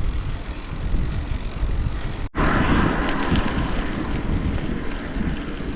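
Wind rushing over the microphone and tyre noise from a bicycle being ridden, a steady noisy rumble; the sound changes abruptly a little over two seconds in.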